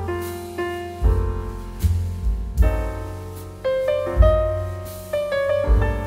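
Background piano music: notes struck and left to ring and fade, with a deep bass note about once a second.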